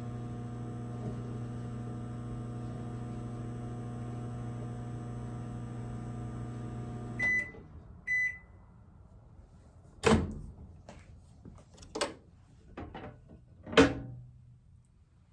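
A 1,000-watt microwave oven running with a steady electrical hum that cuts off about seven seconds in, followed by two short high beeps signalling the end of the cooking cycle. Several sharp clicks and knocks follow.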